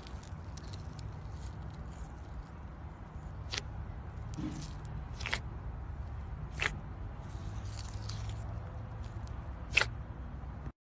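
Slime being squished and worked by hand, with soft crackling and four sharp clicking pops over a low, steady rumble.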